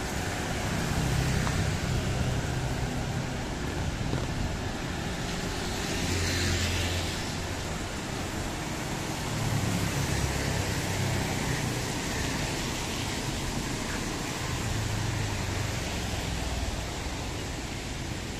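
Street traffic on rain-wet roads: vehicle engines rumbling as they pass over a steady hiss of tyres and rain, with a brighter swish about six seconds in.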